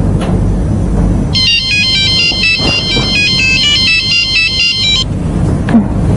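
Mobile phone ringing with an electronic ringtone melody of quick, high beeping notes. It starts about a second in and stops about five seconds in, as the call is picked up.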